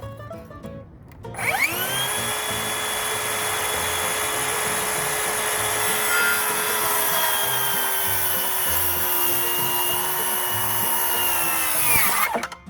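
An electric saw spins up, cuts through a wooden fascia board for about ten seconds with its pitch dipping slightly under load, then winds down near the end.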